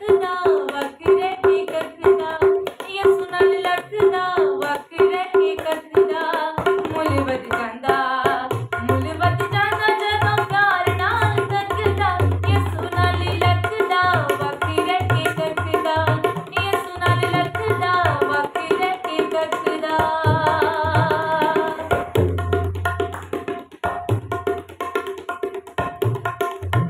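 A woman singing a Punjabi gospel song over a hand drum played with both hands. The drumming grows busier and deeper about seven seconds in.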